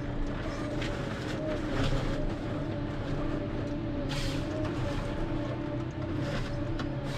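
Ponsse Scorpion King harvester running steadily under work, its engine and hydraulics holding one pitch, with short sharp noises scattered through it, the loudest about four seconds in.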